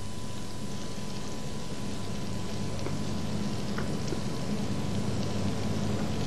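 Floured red mullet frying in oil and butter in a pan: a steady sizzle with a few small spits, growing slightly louder.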